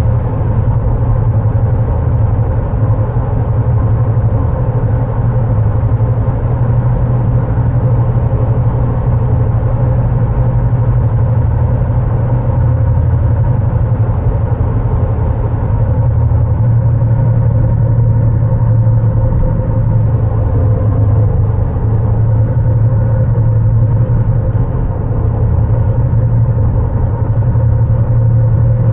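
Car driving, heard from inside the cabin: a steady low rumble of tyres and engine.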